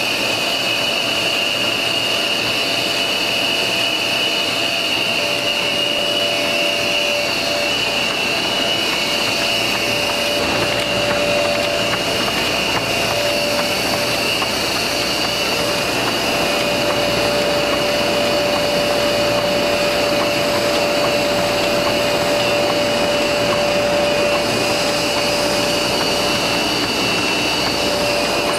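Ultra Coat 1020 40-inch spot UV coater running steadily, a constant mechanical whir and hiss with a few steady high-pitched whines over it as sheets feed through and the coating roller turns.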